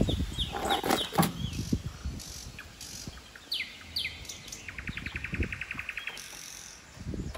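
Hot Wheels toy monster truck rolling down a toy slide and tumbling off it, a short clatter of knocks about a second in. Small birds chirp throughout, with two falling chirps and then a fast, even trill in the second half.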